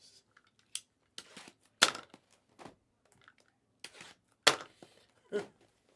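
Trading card box packaging being handled and opened: a string of sharp clicks and snaps with quiet between, the loudest about two seconds in and again about four and a half seconds in.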